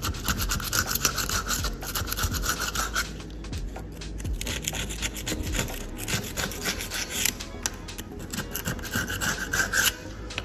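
Razor blade of a utility knife scraping hardened mortar out of the grout line between tile planks, in many short, quick strokes.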